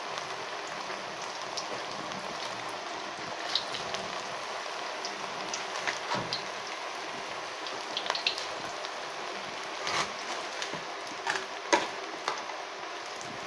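Chicken pakoras deep-frying in hot oil in a steel wok: a steady sizzle with scattered sharp pops and crackles, the loudest pops about ten and twelve seconds in.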